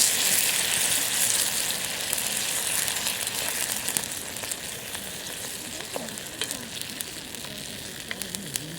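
Food frying in a skillet over a campfire: a dense sizzle that gradually dies down, with sharp pops and crackles scattered through the second half.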